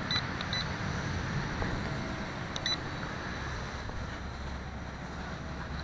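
Short high electronic beeps from the quadcopter's radio transmitter, typical of trim adjustment: a few near the start and two more about two and a half seconds in. Under them, steady wind noise on the microphone with a low hum.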